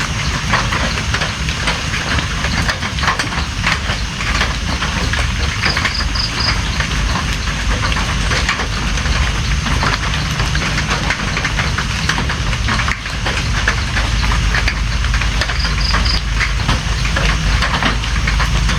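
Steady, heavy rain falling, with a low rumble underneath. A short, high three-note peep sounds twice, about ten seconds apart.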